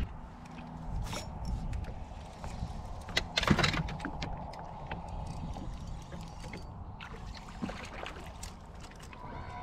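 A spinning rod cast with one swish about three and a half seconds in, among small clicks of handling, followed by the spinning reel being handled, over a steady low rumble.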